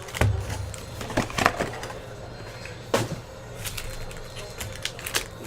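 Trading card box being opened by hand: irregular crackling, tearing and snapping of cardboard and wrapper, with a few sharper cracks.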